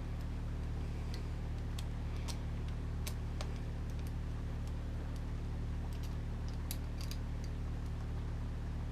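Scattered small sharp clicks of screws being driven with a hand driver into plastic RC truck parts, the screws tightened in turns. A steady low hum lies under the clicks.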